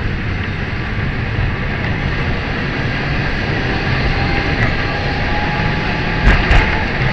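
Lisbon tram running on its rails with a steady rumble. A faint thin squeal comes in about halfway, and two knocks sound near the end.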